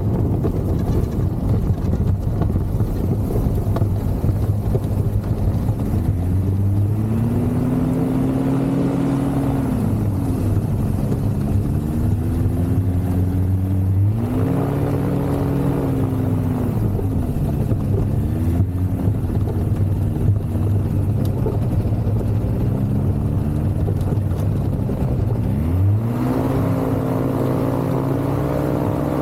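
Ultralight aircraft engine running in flight, its pitch swinging up and down several times, then holding steady at a higher pitch near the end.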